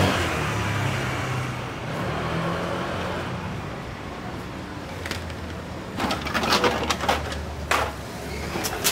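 A motor vehicle passing and fading away over the first second or two, then a low steady engine hum. A cluster of sharp clicks and taps comes about six seconds in.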